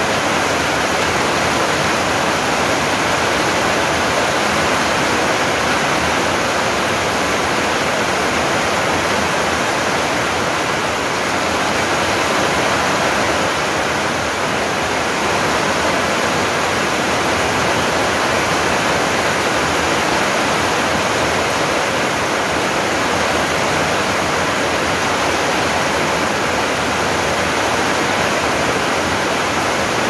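Heavy rain falling steadily on garden trees and plants: a dense, even hiss with no lulls.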